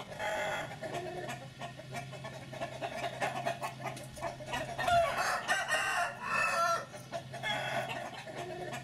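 Roosters clucking and crowing, several short calls coming in groups.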